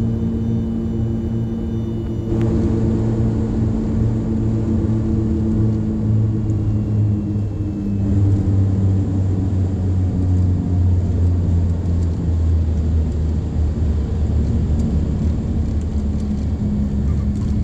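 Cabin sound of a Piper Aerostar 602P's twin piston engines and propellers during landing: a steady drone that drops in pitch as power comes back and the plane slows, with rushing noise rising sharply about two seconds in as it touches down and rolls out.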